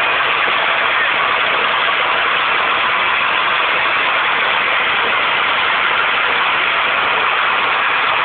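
Open gas well blowout: high-pressure gas jetting uncontrolled from the well, a loud, steady rushing noise that does not change.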